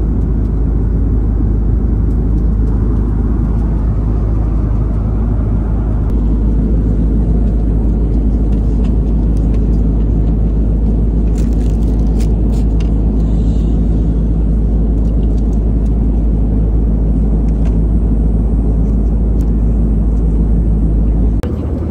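Steady, loud low rumble of an Airbus A330 airliner heard from inside the passenger cabin, engine and airflow noise without speech. The deepest part of the rumble drops away near the end.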